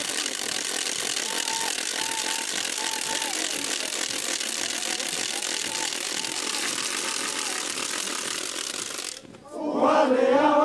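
A steady rushing noise with a faint high melody wavering through it. Just after nine seconds it cuts off and a group of voices breaks into loud chanted singing in chorus, the Huaylia song of the dancers.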